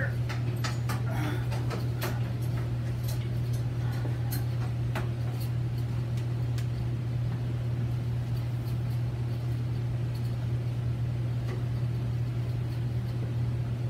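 Steady low hum, with scattered clicks and knocks in the first few seconds as a MIG welder and its leads are handled.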